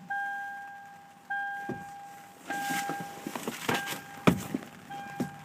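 A Toyota Tundra's cabin warning chime dinging over and over, a single fading ding about every second and a quarter, the kind that sounds with the key in and a door open. From about a second and a half in, knocks and handling thumps join it, the loudest a sharp thump a little past four seconds.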